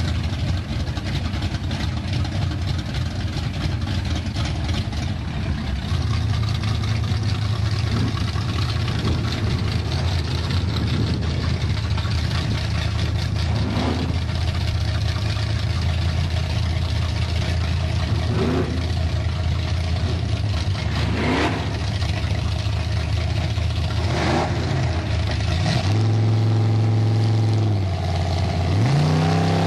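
Chevrolet Camaro drag car's V8 idling, with the throttle blipped briefly about five times. Near the end the engine is held at a steady higher rev, then brought up again to a higher steady rev.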